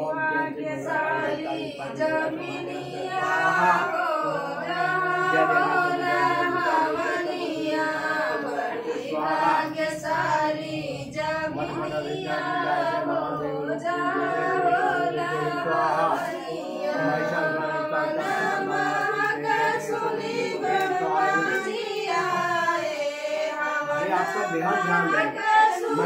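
A group of voices singing a devotional song together during a havan.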